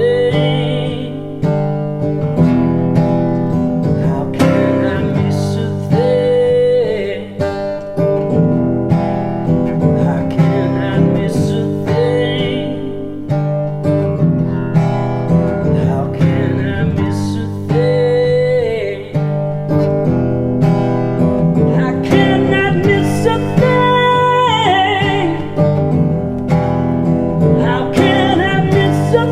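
Acoustic guitar strummed and picked through an instrumental break in a folk song, steady in rhythm, with a melody line above it that bends in pitch now and then.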